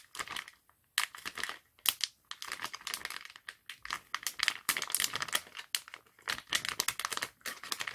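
Plastic Garnier Fresh-Mix sheet-mask sachet crinkling as it is squeezed and kneaded in both hands, an irregular run of crackles. The squeezing presses the serum from its pouch through into the mask compartment.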